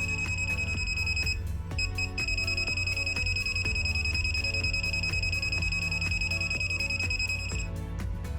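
A multimeter's non-contact voltage detector buzzer sounds a steady, high-pitched alarm tone as it picks up a live wire. The tone breaks off for a moment about a second and a half in, resumes, and stops shortly before the end, over background music with a steady beat.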